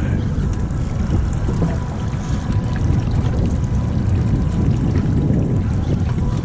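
Water lapping and sloshing against a small boat's hull, under a steady, gusting low rumble of wind on the microphone.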